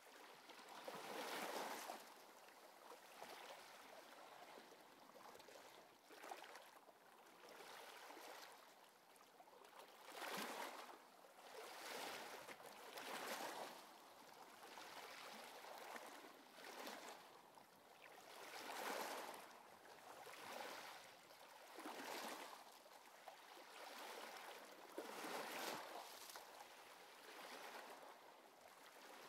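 Faint wave sound: soft swishes of water washing in and drawing back, swelling and fading every two to three seconds.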